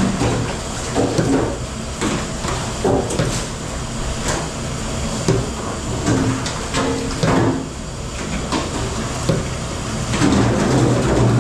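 Commercial dish room clatter: dishes, trays and racks knocking and banging irregularly over a steady background of running machinery and water.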